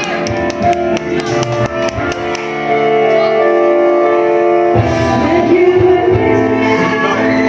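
Loud karaoke music: a backing track with guitar and a steady drum beat that drops out about two and a half seconds in, leaving held chords. A voice comes in singing over it about five seconds in.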